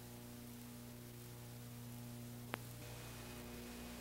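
Steady low electrical hum with a faint hiss, broken by a single sharp click about two and a half seconds in, after which a faint high steady tone joins the hum.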